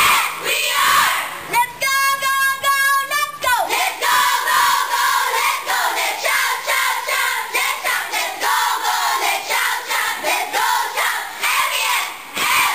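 A large group of young girls singing and chanting together in unison, an action song or cheer. About two seconds in they hold a few repeated steady notes before going back to chanting.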